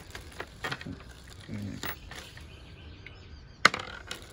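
Rustling of a plastic zip-top bag and the clinking of loose steel bolts and nuts as a hand sorts through them, with one sharp click about three and a half seconds in.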